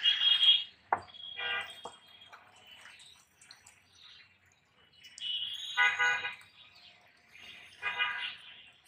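A knife scrapes briefly through pineapple peel at the start. Then a vehicle horn sounds three short honks, about a second and a half in, around six seconds in and near the end.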